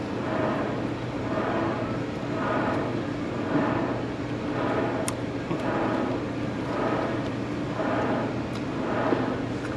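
Steady mechanical hum, swelling softly about once a second, with a single sharp click about five seconds in.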